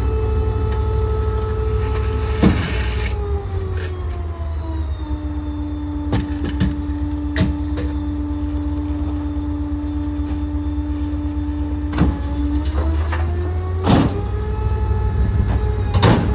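Small rear-loader garbage truck running with a low rumble and a steady whine. The whine drops in pitch about four seconds in, holds lower for several seconds, then climbs back up near the end. Scattered knocks and clunks of bins and trash bags being handled at the truck.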